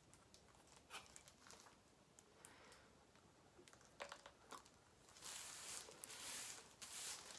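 Faint crinkling of thin plastic gloves and rustling of hair as dye is squeezed from an applicator bottle onto the scalp and worked in, with scattered small clicks. About five seconds in it turns into a louder, steadier rustle as a gloved hand rubs the hair.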